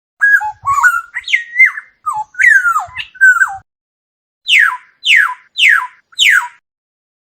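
Oriole singing: a quick run of varied fluty whistled notes that glide up and down, then, after a short pause, four evenly spaced notes that each slide steeply down in pitch.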